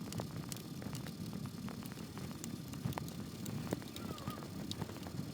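Flush cutters snipping off the trimmer potentiometer leads on a circuit board: a scattered series of small sharp clicks over low handling rumble.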